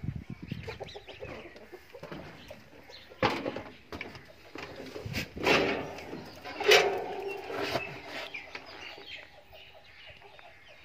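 Chickens clucking now and then, a few short calls about halfway through, over scattered knocks and rustling.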